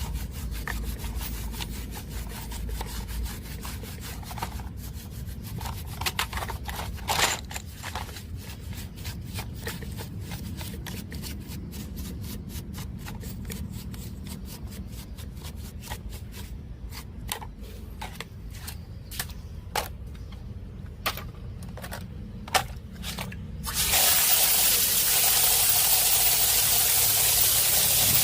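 Scattered light clicks, taps and scraping of small parts being handled, then near the end a loud steady aerosol spray hiss starts.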